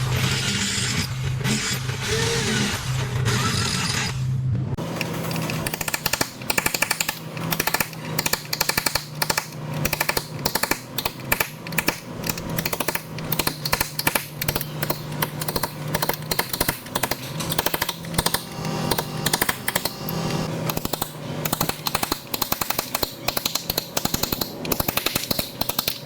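Rapid, uneven string of sharp metal impacts, several a second, from bodywork tools striking a car's steel body panel. It begins about five seconds in, after a few seconds of steadier sound.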